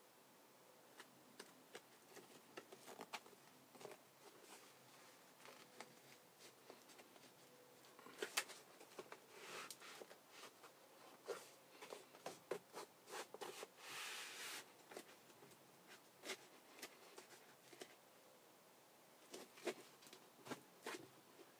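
A rubber floor mat being fitted and pressed down onto a truck cab floor by gloved hands: faint scattered rustles, taps and scrapes, with a longer rubbing sound about fourteen seconds in.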